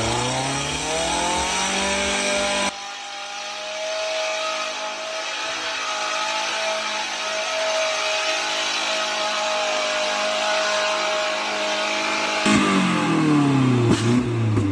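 Kia SUV's engine revving hard, its pitch climbing, then held at high revs for about ten seconds while its tyres spin in deep mud; the revs fall away near the end, with a sharp knock shortly before it finishes.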